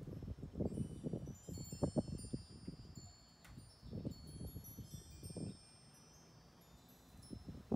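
Metal wind chimes ringing in a breeze, several high tones struck at random and overlapping as they ring on, over intermittent low rumbling noise.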